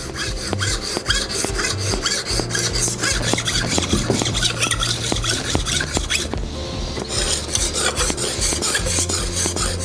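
Steel Bailey No. 5 plane iron rubbed quickly back and forth on a coarse diamond sharpening stone, its back riding on a thin ruler to put a slight back bevel on the edge: an even run of rasping strokes, with a brief lull about six seconds in.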